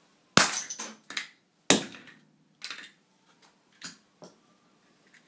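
A hammer striking a small plastic plug-in power adapter on a concrete floor to crack its case open. There are several sharp blows, the two hardest about a second and a half apart, then a few lighter knocks.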